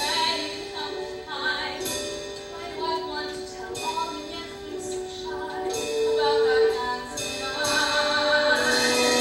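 A stage musical song: female voices singing a slow melody with held notes over accompaniment.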